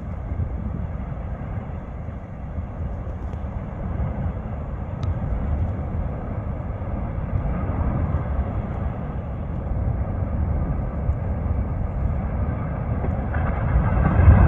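Fagradalsfjall volcano erupting: a continuous deep rumble with a rushing noise above it, growing louder near the end as the crater's activity picks up.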